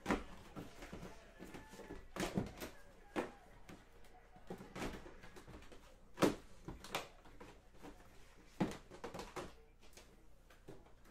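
Cardboard hobby boxes of trading cards being shuffled and slid around on a table, with irregular knocks and scrapes as the boxes bump and drop against each other.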